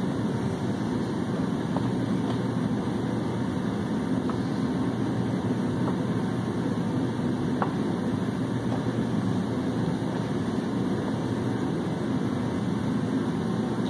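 Steady low machine hum, with a few faint light clicks.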